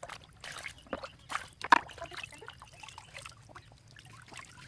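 Water splashing and trickling in short, irregular splashes, with one sharp knock a little under two seconds in.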